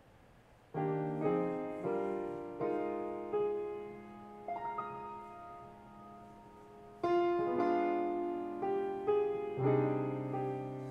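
Baldwin grand piano playing a slow hymn arrangement, beginning about a second in: chords struck one after another and left to ring and fade, with one long held chord midway.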